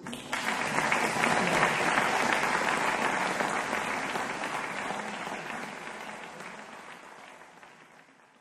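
Audience applauding: the clapping starts at once, is fullest in the first couple of seconds, then slowly fades away.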